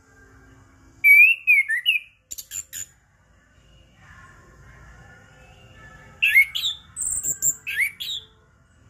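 Orange-headed thrush singing in two short bursts of quick, slurred whistled notes mixed with sharp high-pitched notes and a few clicks, the first about a second in and the second from about six seconds in.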